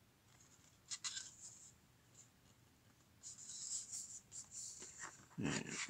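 Cardboard CD sleeve being handled: a short click about a second in, then scraping and rustling as a CD is slid out of its snug cardboard pocket, with a louder bump of handling near the end.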